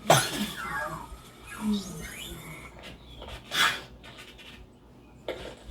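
Cartoon film sound effects. A sharp hit comes first, followed by a quick run of falling squeaks, then a short rising squeak about two seconds in. A loud noisy burst comes around three and a half seconds in, and a small click near the end.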